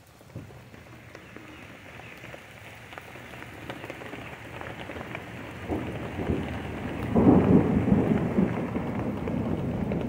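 Thunder after a lightning flash, a low rumble that swells slowly and is loudest about seven seconds in, over steady rain.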